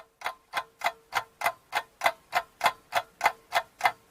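Clock ticking evenly, about three ticks a second, marking a timed pause for guessing.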